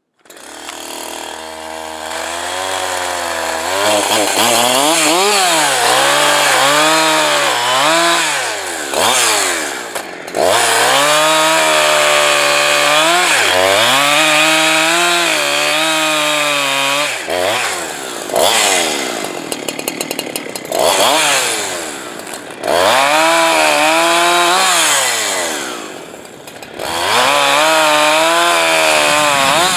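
Two-stroke Farmertec Holzfforma clone chainsaw running hard while cutting firewood. The engine pitch sags and recovers over and over under load, with brief drops toward idle between cuts.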